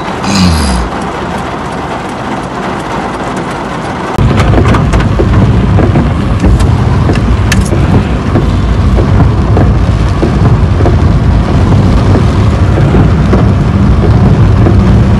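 Heavy rain pouring onto a wet city street, with car and autorickshaw traffic driving through it. About four seconds in, a loud low rumble comes in and continues.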